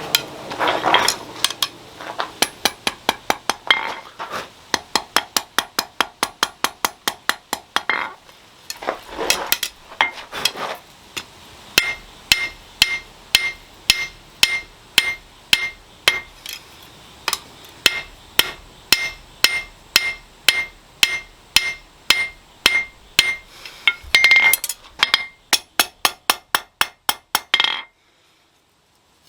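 Hand hammer striking steel on an anvil in steady runs of about two to three blows a second, with short pauses between runs: hand-forging a small blade. Through the middle stretch each blow carries a clear ringing tone. The hammering stops shortly before the end.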